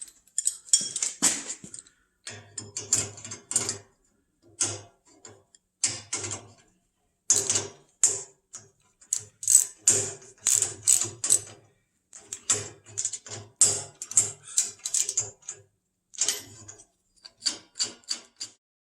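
Bursts of rapid metallic clicking and clattering, about one burst a second with short pauses between: metal parts of a garage door opener rail being handled and fitted together.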